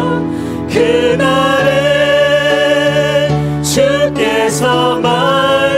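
A mixed-voice praise team of one man and three women sings a Korean worship song into microphones over instrumental accompaniment, holding long sustained notes.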